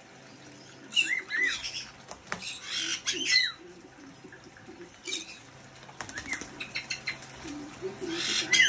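A white-bellied caique bathing in a small water-filled bird bath, beating its wings in bursts of flapping and splashing, while parrots give short shrill rising-and-falling calls about five times.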